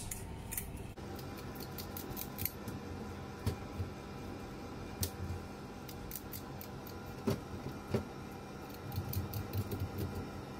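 Kitchen scissors snipping through a needlefish as it is cleaned at the sink: a string of irregular sharp snips and clicks over a faint steady hum.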